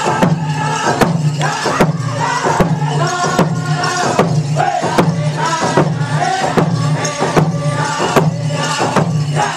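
Powwow drum group singing over a big drum struck in a steady, even beat of a little more than one stroke a second.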